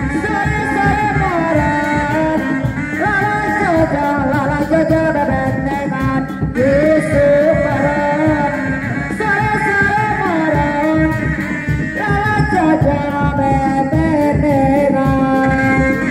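Sundanese reak music: dog-dog drums beating a fast, dense rhythm under a loud melody line that glides and ornaments from note to note.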